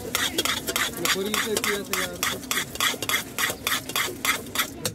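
A metal spoon stirred fast in a small steel vessel, scraping and rattling against its sides about five times a second as it mixes a dry spiced snack.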